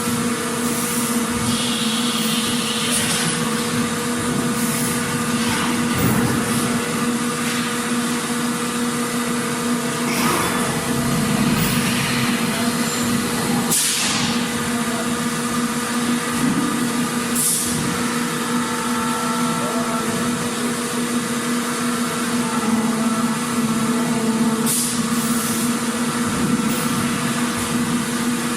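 Factory machinery ambience: a steady, loud mechanical hum over a bed of machine noise, broken every few seconds by short hisses like released air.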